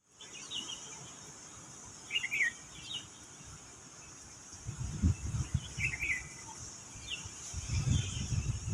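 Lovebirds giving short, shrill chirps in small bursts every second or two, over a steady high hiss. A low, irregular rumble comes in about halfway.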